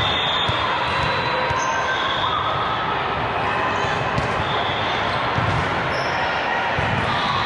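Busy volleyball gym during play: a steady din of many voices, with volleyballs being hit and bouncing off the floor and brief high squeaks.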